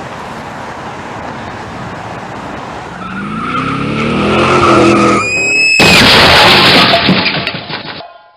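Car crash sound effect: a car speeds up with its engine pitch rising, the tyres squeal briefly, then a sudden loud crash about six seconds in, with crunching and clattering debris that dies away near the end.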